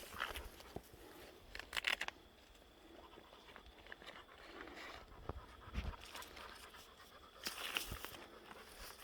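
Faint footsteps and panting breath while hiking on a trail, in two short spells: about two seconds in and again near the end.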